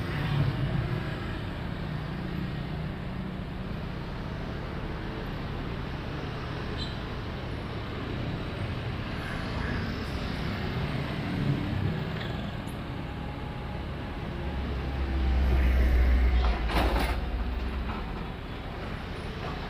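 Steady street traffic, mostly motor scooters and cars passing. About fifteen seconds in, a heavier vehicle passes close with a louder low rumble and a brief clatter.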